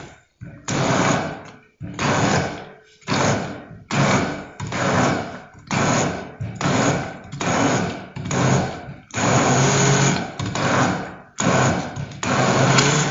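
Hand-held immersion blender run in short bursts, about one a second, churning eggplant with ground chia and sesame into a thick paste in a glass jug.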